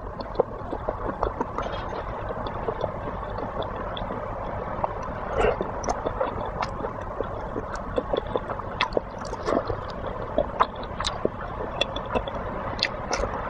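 Close-miked eating of soup-soaked molten-cheese balls: irregular wet chewing, squishing and small mouth clicks over a steady background hiss.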